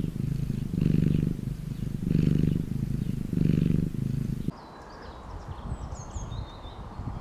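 A cat purring in a steady rhythm, swelling with each breath about once a second. About four and a half seconds in it cuts off suddenly, and birds chirp over a low rustling hiss.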